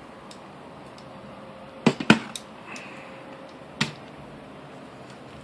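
Handling noise from a rifle being turned in the hands: a quick run of three sharp clicks about two seconds in, and one more click near four seconds, over a steady hiss.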